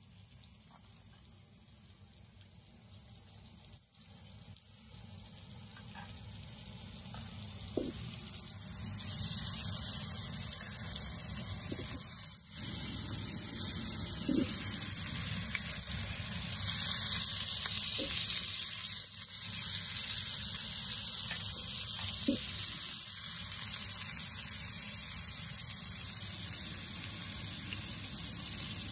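Pieces of rohu fish sizzling in hot oil in a frying pan, a steady hiss that grows louder as more pieces go into the pan, stepping up about ten and seventeen seconds in.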